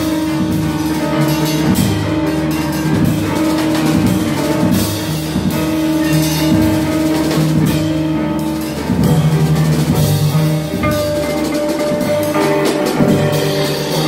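Small jazz group playing together: grand piano and electric guitar holding and changing notes over a drum kit with ride cymbal.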